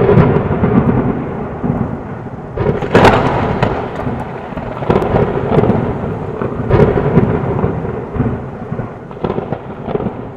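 Thunderstorm: thunder rumbling continuously, with loud claps about three seconds in and again near five and seven seconds, over rain, slowly fading.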